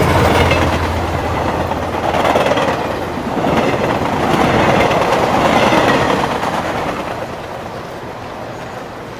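A train passing by, running loudly and then dropping away about seven seconds in.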